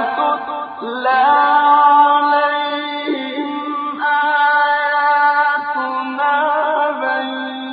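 Quran recitation in tajweed style: a single man's voice chanting in long, melodic held notes, with no instruments.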